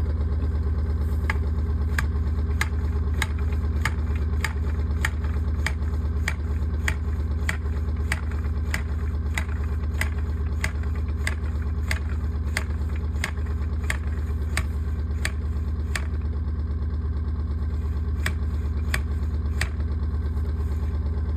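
An engine idling steadily, with sharp, regular clicks or knocks about twice a second over it.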